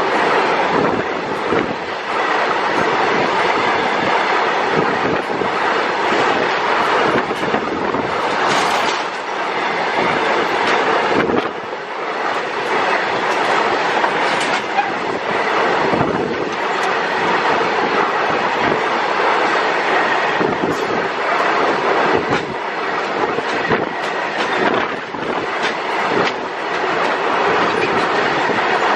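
Goods train of covered wagons rolling past close by at speed: a steady loud rush of wheel-on-rail noise with repeated clacks as the wheels run over the rail joints.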